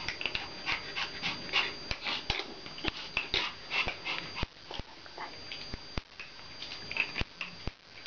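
Pomeranian dogs whining and yipping in short high-pitched bursts, thicker in the first half, with scattered sharp clicks.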